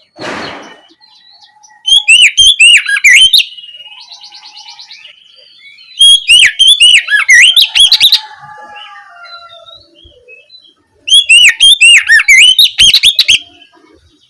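Oriental magpie-robin (kacer) singing in the open, loud 'ngeplong' style: three loud bursts of rapid, repeated looping whistles with softer notes between them. A short low rustle comes right at the start.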